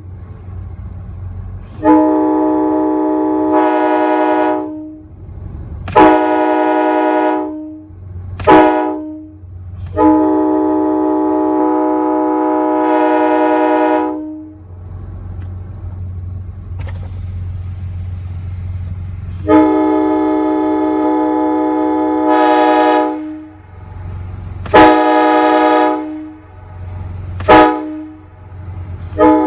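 Parts-built Nathan AirChime K5HA five-chime train horn with mixed sandcast bells, sounding about eight blasts: mostly long steady chords of two to four seconds, a few short toots, and a gap of about five seconds in the middle. A low steady hum from the air rig runs between the blasts.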